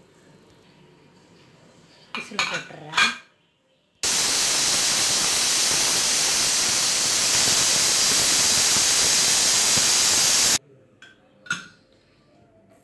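Stovetop pressure cooker letting off steam through its weighted vent: a loud, steady hiss that starts suddenly about four seconds in and stops sharply about six and a half seconds later. This is the cooker's 'whistle', the sign that it has come up to pressure.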